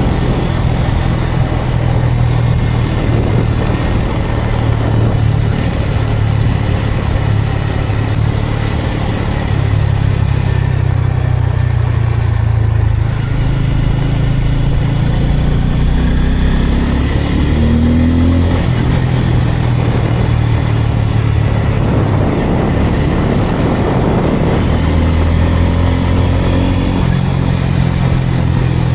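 Bajaj Pulsar N250's single-cylinder engine running under way, its pitch stepping up and down with throttle and gear changes and rising briefly in a rev about halfway through, over rushing wind and road noise.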